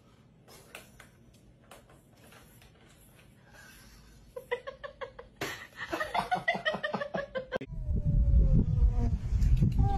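A few faint taps, then a person laughing in quick, high-pitched bursts for about three seconds. It cuts off suddenly into a loud, low rumbling noise.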